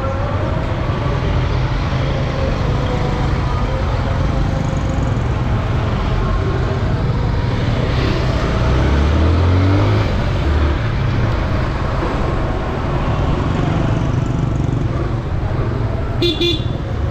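Motorcycle riding through town traffic: a steady mix of engine and road noise, with the engine note rising briefly about nine seconds in. A short horn toot sounds near the end.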